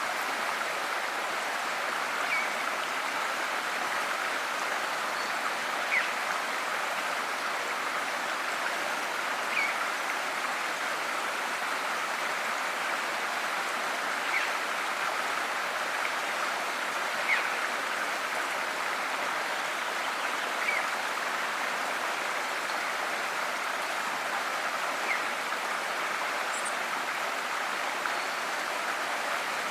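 River water flowing in a steady rush. Brief, sharp, louder blips stand out every few seconds.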